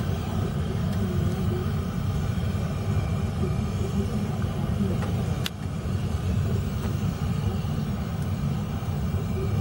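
A steady low rumble, with one sharp click about five and a half seconds in.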